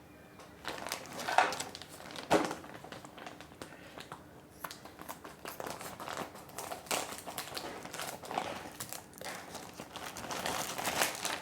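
A courier package being opened by hand: packaging crinkling and rustling in irregular bursts, starting about a second in, with two sharper, louder sounds around one and a half and two and a half seconds in.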